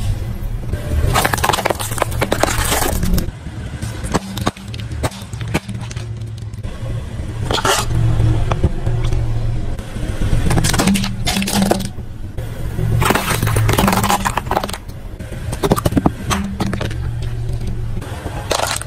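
A car tyre crushing plastic objects one after another: several clusters of sharp cracking and crunching as toys and plastic containers break under the wheel, over the steady low hum of the car's engine.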